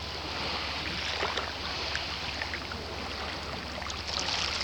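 Sea waves washing ashore: a steady hiss of moving water with many small splashes and crackles.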